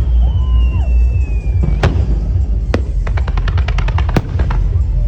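Fireworks going off: a falling whistle from a whistling shell, then a sharp burst about two seconds in and a quick run of crackling reports, about ten a second, over a constant low rumble.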